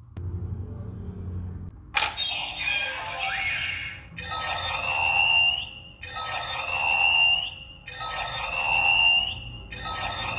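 Electronic toy sound effects from a small speaker, most likely a DX Blazar Brace reading a Blazar Stone: a sharp click about two seconds in, then the same short electronic music phrase looping about every second and a half to two seconds.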